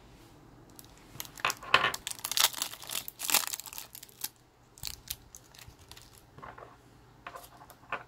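A crinkly wrapper being torn open and crumpled: a dense run of sharp crackles for about three seconds, then scattered crinkles and clicks.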